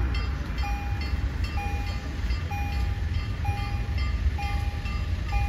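Electronic warning sounder of a Polish railway level crossing beeping about once a second, each beep half a second long: the crossing signal is still active. A low rumble runs underneath.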